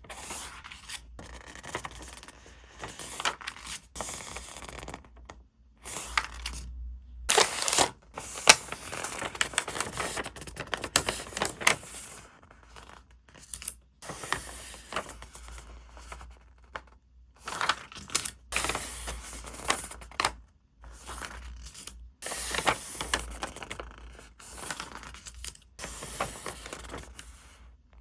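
Paper being handled for journaling: crinkling, scraping and tearing in irregular bursts, broken by a few short silent gaps.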